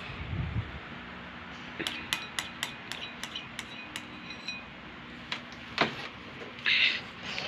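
A metal spoon clinking against a baby-food bowl: a quick run of light, briefly ringing clinks, then a few scattered clicks, one louder, and a short soft hiss near the end.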